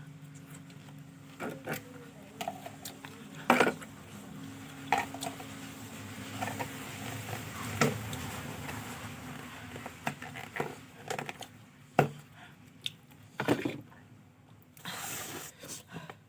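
Eating sounds: a spoon clinking and scraping in a tiffin box of fried rice, with chewing between. The clicks come at irregular moments, several of them sharp.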